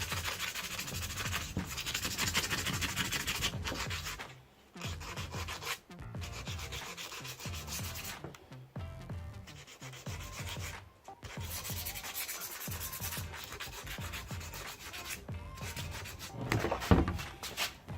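Sandpaper rubbing on a rusty steel steering-rack part in runs of quick back-and-forth strokes, with short pauses between runs, and a knock near the end.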